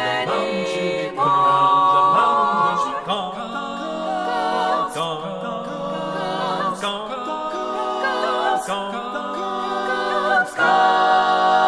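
Unaccompanied vocal group singing in harmony, with no instruments, closing on a long held chord near the end.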